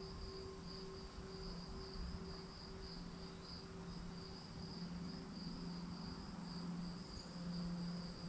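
Crickets chirping in a steady, rapid high trill, faint. Beneath them are soft sustained low tones: one fades out near the end while a lower one swells.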